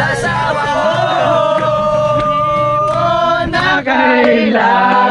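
Several men singing a Tagalog song together, with long held notes, to acoustic guitar strumming. The guitar stops about two-thirds of the way through while the voices carry on.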